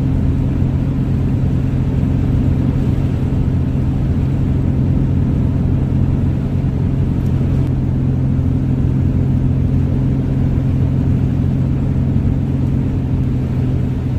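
Van driving at a steady speed, heard from inside the cab: a constant low engine hum over road and tyre noise.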